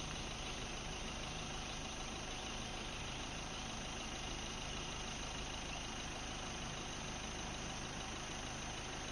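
A stopped vehicle's engine idling steadily.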